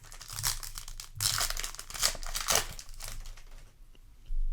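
A Yu-Gi-Oh! booster pack's foil wrapper crinkling and tearing as it is opened, in noisy rustling bursts that die away after about three and a half seconds.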